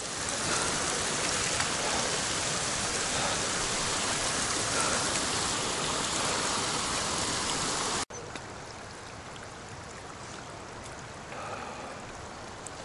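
Rushing stream water, a steady even rush. About eight seconds in it cuts abruptly to a quieter, fainter rush of water.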